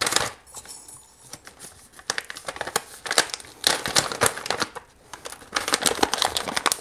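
Paper towel crinkling and rustling as it is rubbed and crumpled in the hands while wiping, in several crackly spells, busiest in the second half.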